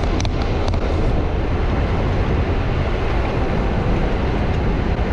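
Wind buffeting the microphone over the steady rush of a small boat running on the water, with a few sharp knocks in the first second.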